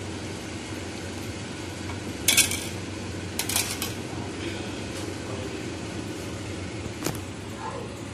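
Kitchen utensils clinking: a steel tea strainer and pan knocking against ceramic mugs as strained tea is handled and set down. There are a few sharp clinks, the loudest about two seconds in and a cluster about a second later, over a steady low hum.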